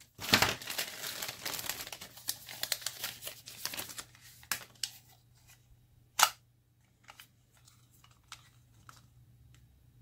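A Happy Meal toy's plastic bag being torn open and crinkled for about four seconds, followed by scattered light clicks of plastic pieces being handled, with one sharper snap about six seconds in.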